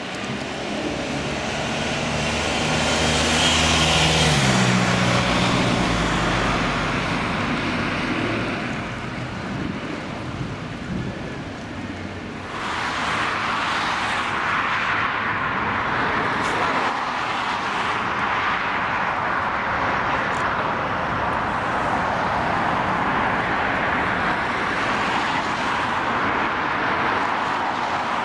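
Airbus A380's four jet engines passing overhead, swelling with an engine tone that drops in pitch about four to five seconds in as the aircraft goes by. After a sudden change about twelve seconds in, the steady rush of the A380's engines on final approach to land.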